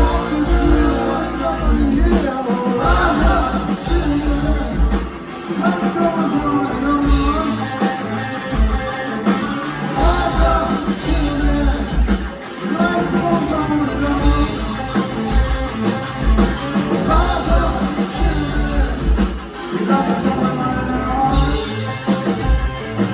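Rock band playing live, with a singing voice over guitars, bass and drums.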